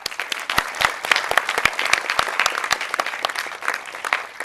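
Audience applauding: many people clapping at once, starting suddenly and holding steady, beginning to fade near the end.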